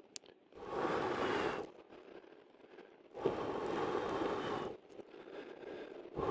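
A person blowing hard into a freshly lit campfire of bark and dry leaves to fan the flames: two long blows of about a second and a half each, with a third starting near the end.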